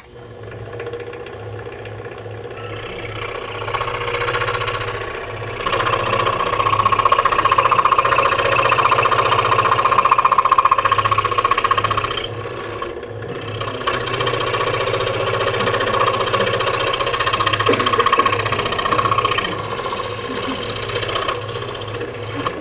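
Scroll saw running and cutting a dovetail into a small wooden board. A steady, pulsing motor hum sits under a louder rasp of the blade in the wood, which builds over the first few seconds and eases briefly about halfway through.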